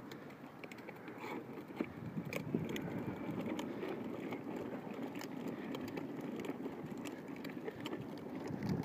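Hard plastic wheels of a toddler's ride-on toy car rolling over rough asphalt: a steady low rumble with scattered small clicks and rattles.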